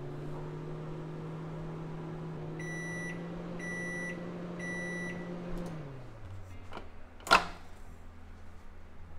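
Over-the-range microwave oven running with a steady hum, sounding three short beeps as the cooking cycle finishes; the hum then winds down. About a second later the door's latch releases with a single sharp click as the door opens.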